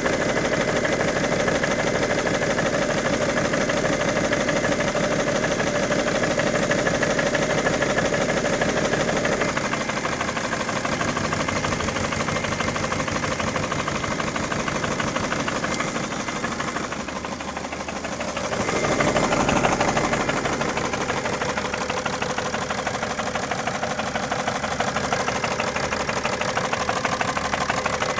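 2011 BMW 335d's 3.0-litre twin-turbo straight-six diesel running with a fast, steady knocking clatter, a bad knock whose cause the owner cannot find. The sound dips and then swells briefly about two-thirds of the way through.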